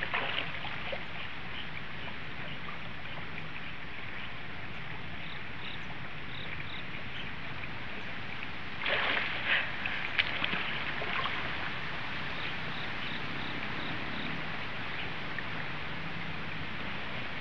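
Steady rush of a river running with a strong current, with insects chirping faintly in short regular pulses. About nine seconds in comes a louder, broader burst of noise with a few sharp knocks.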